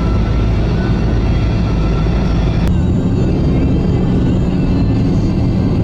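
Steady road and engine noise of a vehicle driving at highway speed, heard from inside the cab. The noise changes abruptly with a click about two and a half seconds in, at an edit between two stretches of driving.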